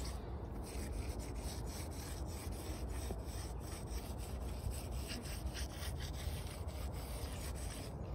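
A sponge scrubbing back and forth along the painted edge of a narrowboat's roof, a quick run of rubbing strokes.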